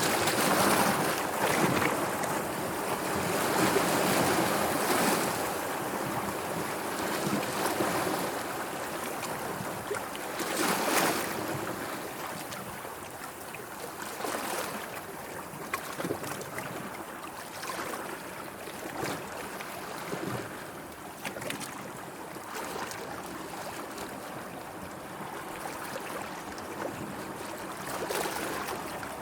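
Sea water washing and lapping in irregular surges that swell and fade, louder in the first dozen seconds.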